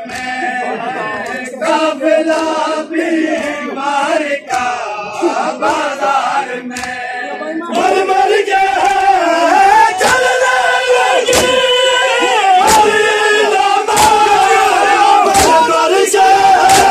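Crowd of men chanting a mourning chant together, with sharp slaps of hands striking bare chests in time (matam). About eight seconds in the chanting grows louder and the chest beats fall into a steady beat roughly once every second and a quarter.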